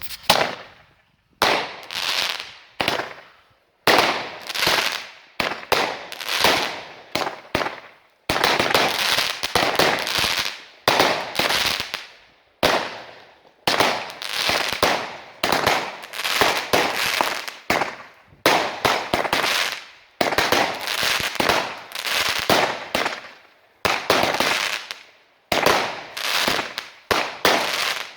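Consumer fireworks going off shot after shot, about one or two a second. Each starts with a sharp bang and trails off in a fading crackle, and for a few seconds midway they run together almost without a break.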